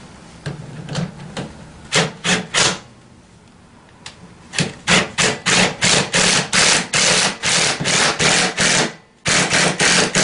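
Hand socket ratchet clicking as it tightens the rear shock's mounting bolt. A few single clicks first, then after a short lull a steady run of short clicking bursts about three a second, one for each back-swing of the handle, with a brief pause near the end.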